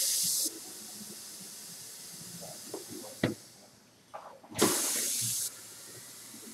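Pneumatic bead breaker on a motorcycle tire machine: compressed air hissing as the pedal-worked cylinder pulls the arm in to break the tire bead off the rim. It comes in two loud hisses of about a second each, one cutting off about half a second in and the other about four and a half seconds in, with a fainter steady hiss between them and a single knock about three seconds in.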